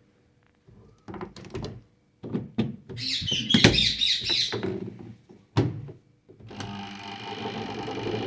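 Clicks and knocks from the semi-automatic washing machine's controls and lids being handled. About six and a half seconds in, the spin-tub motor starts, and its steady hum builds as the spin dryer comes up to speed.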